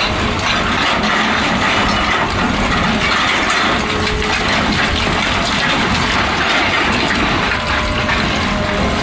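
An excavator working with a hydraulic hammer or drill attachment. It makes a loud, steady, dense clatter of rapid fine impacts without a pause.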